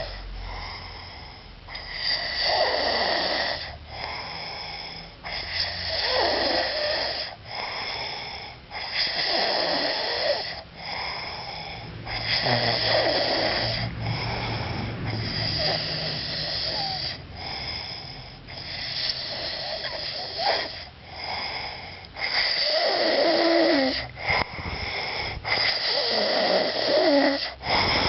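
Snoring during sleep: about eight long, rasping snores, one every three to four seconds, each with a wheezy whistle.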